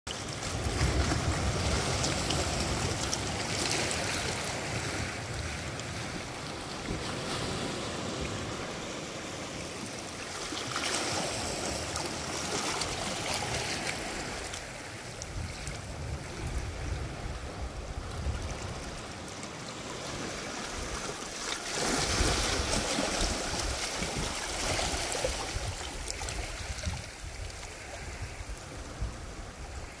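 Sea waves surging in against shoreline rocks: a steady rushing wash that swells with each incoming wave and then falls back, with a low rumble underneath. The strongest surges come near the start and about two-thirds of the way through.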